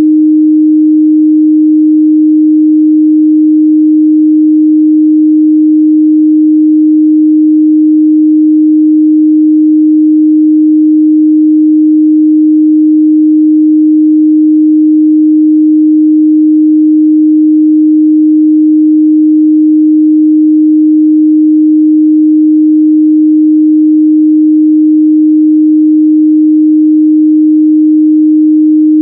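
A steady 308 Hz pure sine test tone, a single unchanging mid-range pitch held at a constant level.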